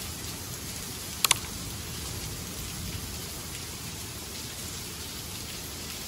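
Rain falling steadily, an even hiss, with two quick sharp taps close together about a second in.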